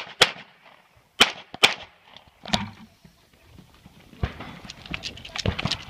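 Five gunshots, unevenly spaced, in the first two and a half seconds, then quick running footsteps on dry ground from about four seconds in.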